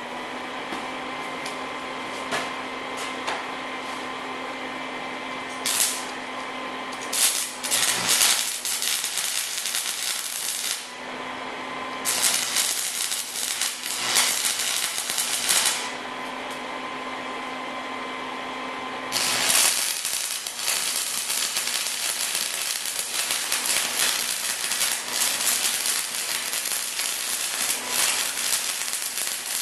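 Stick-welding arc from a cheap 115 V flux-core welder's AC output, set to maximum and run through a spliced-on stick electrode holder, crackling and sizzling. It comes in several runs: a brief strike about six seconds in, two runs of a few seconds each, then a long run of about ten seconds from about nineteen seconds in. A steady hum fills the gaps between runs.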